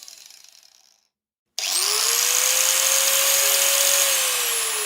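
Small electric motor, like a power tool's, whining down and cutting to silence. About a second and a half in it starts abruptly, speeds up to a steady high whine, and begins to slow near the end.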